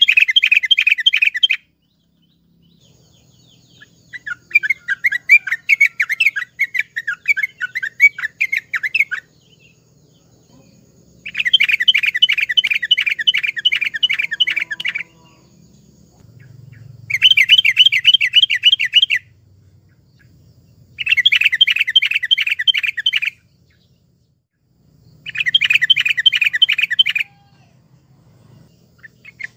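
Yellow-vented bulbul singing in bursts: about six phrases of fast chattering notes, each two to four seconds long, with short pauses between, the second phrase softer than the rest.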